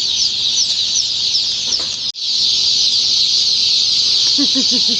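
A large batch of day-old chicks peeping all at once: a dense, high-pitched chorus of hundreds of tiny chirps. It breaks off for an instant about two seconds in.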